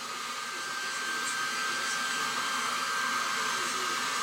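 Steady airy, fan-like hiss with a faint steady whine, growing slightly louder.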